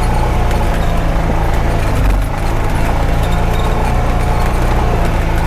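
Honda Pioneer 520 side-by-side's engine pulling steadily under load up a steep, rocky trail in four-wheel drive, with scattered knocks and rattles as it crawls over rocks and a heavier low thump about two seconds in.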